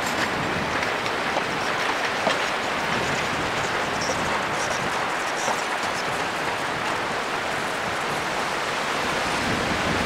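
Narrow-gauge passenger coaches rolling slowly past, their steel wheels running on the rails in a steady rumble with scattered light clicks.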